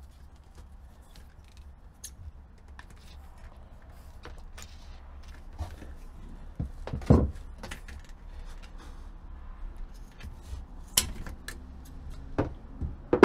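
Hands and a cutting tool working a clear plastic baler hose in a Sea-Doo's engine bay: scattered clicks and knocks over a low steady hum, with a louder knock about seven seconds in and a sharp click about eleven seconds in.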